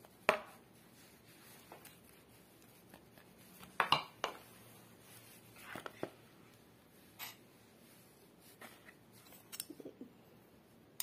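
A metal spoon clicking and scraping against a silicone spatula and a plastic mixing bowl as spice paste is scraped into flour: scattered sharp taps and short scrapes at irregular intervals, the loudest just after the start and a few around four seconds in.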